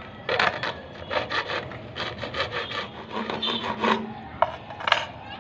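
Hacksaw blade sawing back and forth on a PVC pipe tee inside a drain pipe, in quick rasping strokes about three a second. The tee is being cut out to open the blocked rooftop drain.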